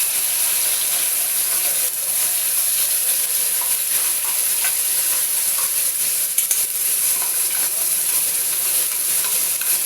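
Onion, garlic and green chilli paste sizzling steadily as it fries in hot mustard oil, stirred in the pan with a few light scrapes.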